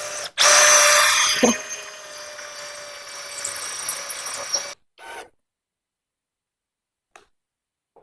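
Power drill with a ceramic tile bit boring through a wetted ceramic stair tile, a steady grinding whine with a few held tones. It stops suddenly about four and a half seconds in.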